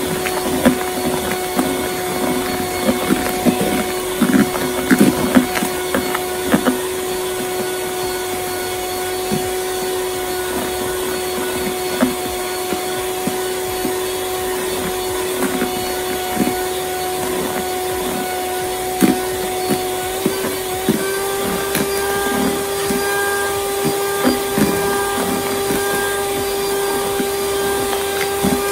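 Electric hand mixer running steadily as it beats egg whites and sugar, its motor whine stepping up slightly in pitch about two-thirds of the way through. The beaters knock and scrape against the plastic bowl, most often in the first few seconds.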